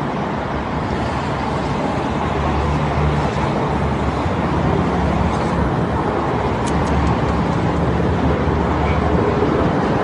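Steady low rumble like road traffic, slowly growing louder, with a few faint pops about two-thirds of the way through.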